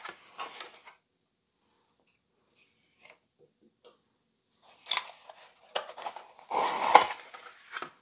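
Cardboard fan packaging being handled and pulled apart as a PC cooler fan is unpacked, with rustling, scraping and small clicks. A stretch of near quiet comes first. The handling is loudest as a short scrape ending in a sharp click about seven seconds in.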